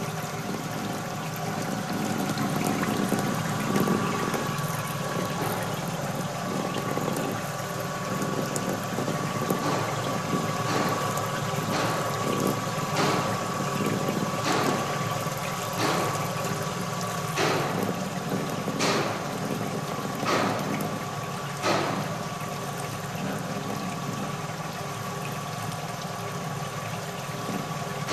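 Kason Vibroscreen circular vibratory screen separator running, with a steady low hum and a steady whine, while a stream of slurry of about 8% solids pours onto the vibrating screen. From about ten seconds in there is a string of sharp clicks, roughly one a second, for about twelve seconds.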